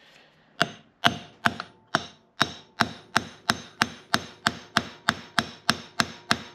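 Hammer blows on a tapered bearing driver, driving a new wheel-bearing race into a Valiant front hub. A steady run of sharp metallic strikes, each with a short ring, starts about half a second in and quickens to about three a second.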